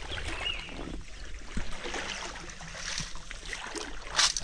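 Pond water sloshing and trickling, with scattered small knocks and a brief louder rush of noise near the end.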